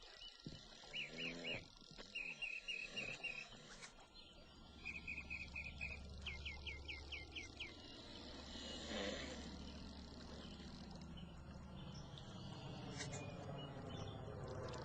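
Bird chirping in short quick runs during the first half, while the low rumble of an approaching airplane gradually grows louder through the rest, its tone slowly sweeping.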